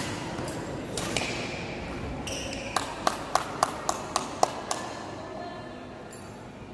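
Badminton racket strings striking a shuttlecock. There is a single sharp hit at the start and another about a second in, then a quick run of about eight light, ringing pings, roughly four a second.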